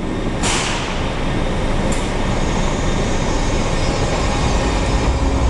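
Washington Metro train pulling out of an underground station: a sharp hiss of air about half a second in and a shorter one near two seconds, then a steady low rumble that builds as the train gets under way, with a faint high whine.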